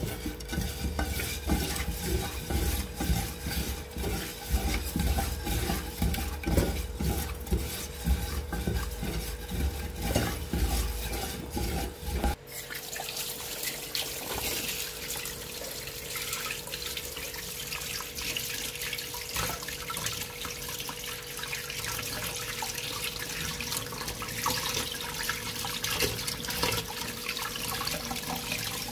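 Hands scrubbing raw sardines with coarse salt in a pan, an irregular wet rubbing and squishing. About twelve seconds in, a tap's running water takes over, splashing steadily as the fish are rinsed and rubbed clean.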